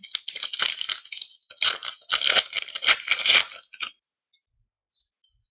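Wrapper of a hockey card pack crinkling and tearing as it is ripped open: a run of crackly rustles that stops about four seconds in, followed by a few faint ticks.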